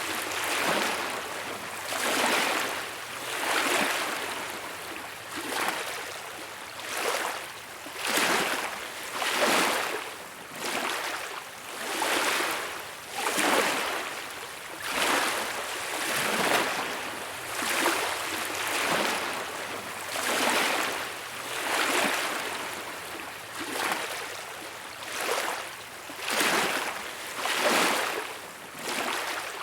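Gentle small waves lapping on a beach, the wash of water swelling and fading again every second or so.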